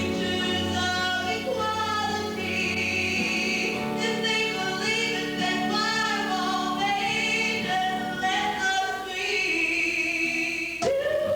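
Women singing a 1960s-style pop number with band accompaniment in a live stage performance, held notes with vibrato over sustained chords; the song cuts to another section near the end.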